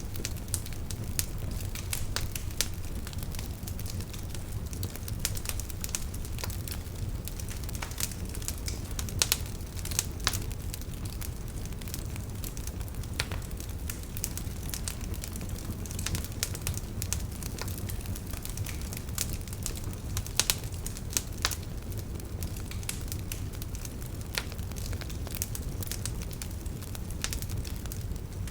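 Campfire burning, crackling with a steady run of irregular sharp pops over a low steady rumble of the flames; a few pops stand out louder.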